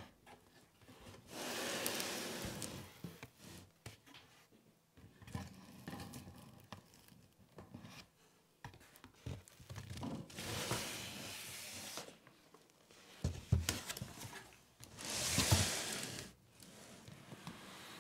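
Cardboard box being unpacked by hand: flaps opened and cardboard sliding and scraping against cardboard, in three long rustling scrapes a few seconds apart, with a couple of sharp knocks shortly before the last one.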